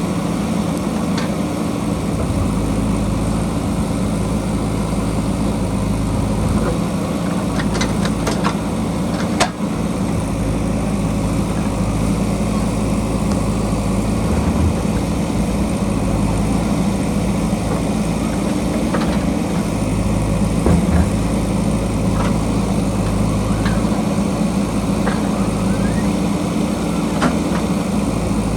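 JCB backhoe loader's diesel engine running steadily, with a few sharp knocks about eight and nine and a half seconds in.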